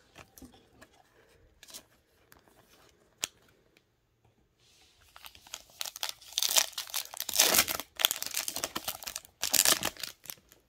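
A few faint clicks of cards being handled, then from about halfway a Topps Finest trading card pack wrapper being torn open and crinkling loudly in quick bursts.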